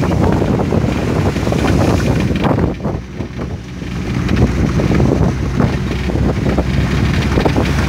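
Land Rover Defender driving through water on a flooded dirt track, heard from inside the cab: the engine runs steadily under a constant wash of water and mud splashing against the body, with frequent short knocks and rattles.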